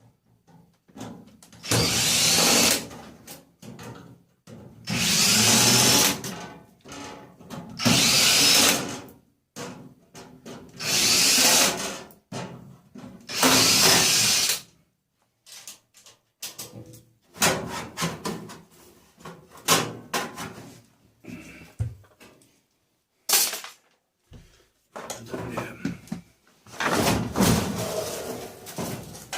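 Power drill running in five short bursts of about a second and a half each, likely backing screws out of the dryer's casing, followed by irregular clatter and knocks of parts being handled.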